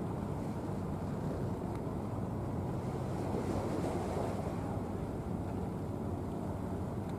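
Steady low rumble and wash of the cruise ship Asuka II passing close by, with a faint machinery hum and wind on the microphone; it swells briefly around the middle.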